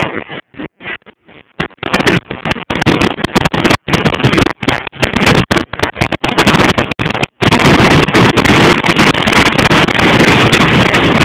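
Wind buffeting a phone's microphone, choppy with sudden dropouts at first, then a steady loud rush from about seven seconds in.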